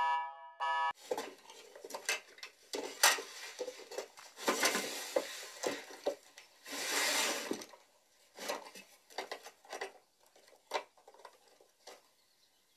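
An alarm-like beep ends about a second in; then a drawer of dishes and odds and ends is rummaged through: clinks and knocks of crockery and small objects, with two longer rummaging noises, thinning to a few faint taps near the end.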